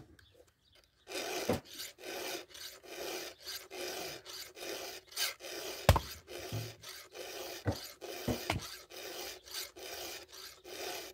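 Hand file rasping across the cutters of a Husqvarna 572XP saw chain in quick back-and-forth strokes, about two a second, starting about a second in, with a few sharp clicks among the strokes.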